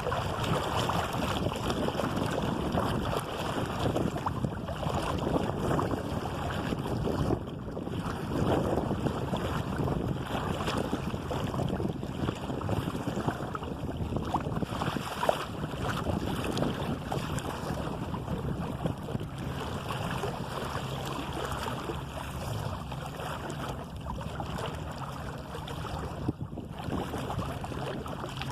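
Water splashing and rushing along the hull of an open sailing canoe under way, with wind buffeting the microphone.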